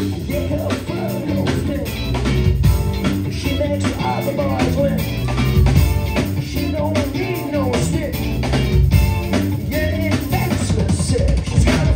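Live funk band playing: electric guitar, electric bass and drum kit, with a man singing over the groove.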